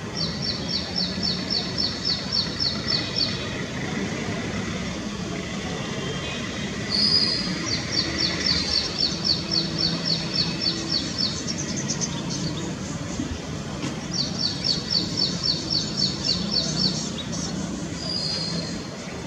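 A sunbird singing: three runs of quick, high, evenly spaced notes at about four a second, each run lasting a few seconds, with a short slurred note before the second run and another near the end.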